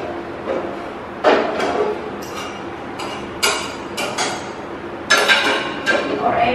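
Metal pots and pans being handled on a gas stove: a string of sharp knocks and clinks as a pan is set on the burner and utensils are picked up. Several of the knocks carry a short metallic ring.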